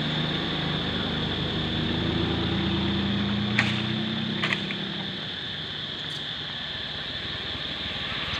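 A motor or engine running steadily, its hum drifting slowly in pitch, with two brief clicks a little after the middle.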